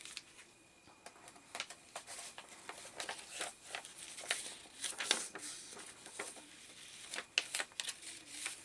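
Paper rustling and crinkling with scattered soft taps as the pages of a handmade junk journal are handled and turned.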